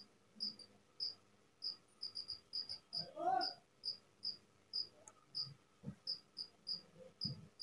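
A cricket chirping steadily in the background: short high chirps about two a second, some coming in quick pairs or triples.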